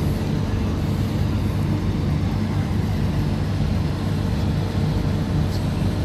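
Steady low drone of running engines, a continuous rumble with a steady hum.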